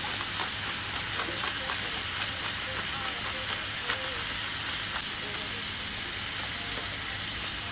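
Mushrooms and diced onions sizzling steadily as they sauté in butter and oil in a frying pan, with a few small pops.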